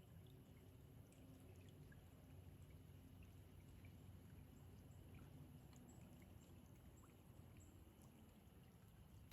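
Near silence: faint outdoor ambience, a low rumble with scattered light ticks.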